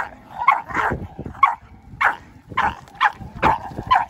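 Pit bull terrier barking repeatedly at another dog, in short, sharp barks about two a second, some coming in quick pairs.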